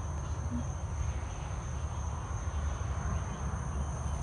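Night insects trilling in a steady, high-pitched chorus, under a low steady rumble.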